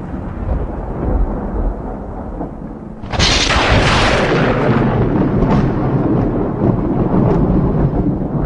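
Strong wind buffeting the phone's microphone in a low rumble, with a sudden loud gust rush about three seconds in that dies away into scattered crackling.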